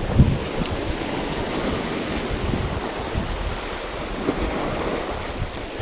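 Sea surf washing and breaking over shore rocks, with wind buffeting the microphone.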